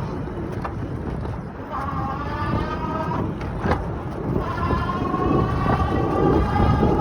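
Lectric Xpedition e-bike's hub motor whining under power at road speed, over a low rumble of wind and pocket rub. The whine drops out for about a second midway, then comes back and rises slightly in pitch. The owner finds it much louder than it should be and cannot tell whether it is normal.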